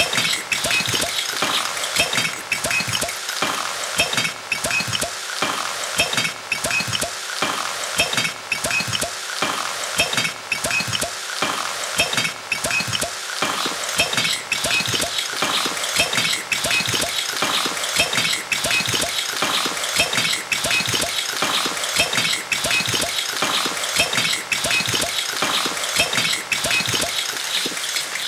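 Continuous scratchy, clinking noise with a loose rhythm of stronger accents about once a second.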